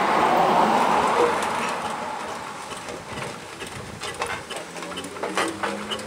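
1922 Aveling & Porter steam road roller running slowly along the road. A loud rushing hiss fills the first second or so and fades away, then irregular clanks and knocks from the machine take over near the end.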